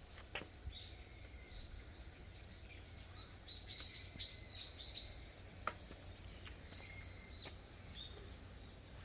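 Small birds chirping in short repeated calls, busiest about four seconds in and again near seven seconds, over a steady low rumble, with a sharp click a little after five seconds.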